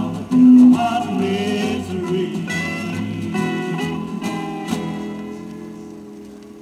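A country record playing on a turntable: the song's instrumental ending, with guitar, fading out over the last couple of seconds.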